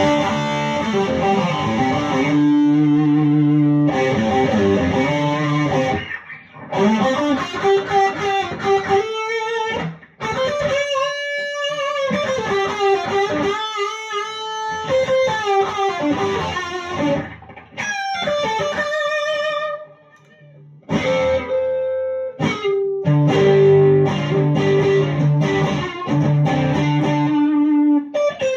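Charvel HH Strat-style electric guitar played through a Friedman amp's dirty channel and a 2x12 cabinet: distorted chords and single-note lead lines, some held notes with vibrato. The playing stops briefly about 6, 10 and 20 seconds in.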